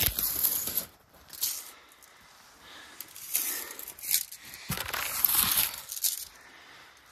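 Handling noise: a fabric sleeve rubbing and brushing against the phone's microphone while a tape measure is worked close by. It comes as several bursts of scratchy rustling, with quieter gaps between them.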